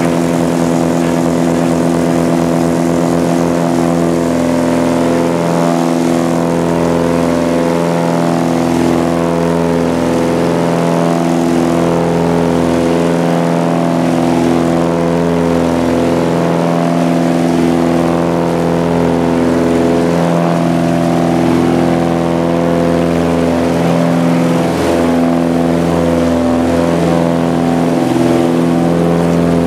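Light propeller plane's engine running at takeoff power, heard from inside the cockpit during the takeoff roll: a loud, steady drone of even tones, with a fast low pulsing in the first few seconds.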